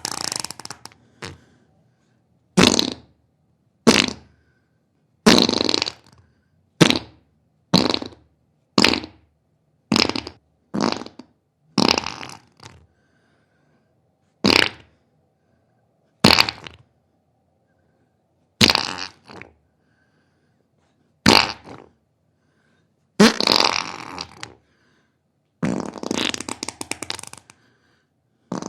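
A long series of human farts: short separate blasts a second or two apart, then two longer drawn-out ones near the end. This is flatulence from excess intestinal gas (meteorism).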